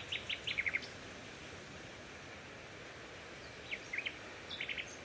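Small bird chirping over steady outdoor background noise: a quick run of short, sharp chirps in the first second, then another cluster near the end.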